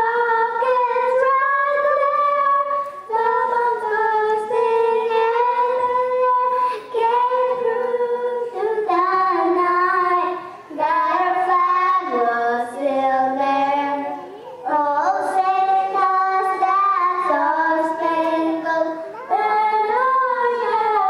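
A woman and young girls singing a national anthem in long, held notes, phrase by phrase.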